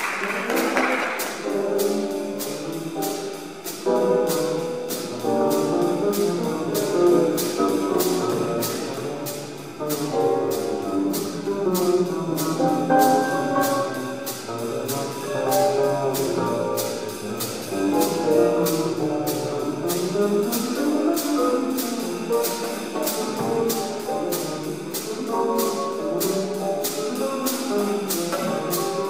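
Jazz piano trio of grand piano, upright double bass and drum kit playing. Busy piano lines run over the bass, while a cymbal is struck in a steady beat about two to three times a second.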